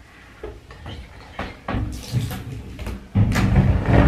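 Soapy water sloshing and splashing in a plastic basin as a wet kitten is bathed and scrambles out, with knocks against the basin and bathtub. A louder stretch of sloshing and knocking comes near the end.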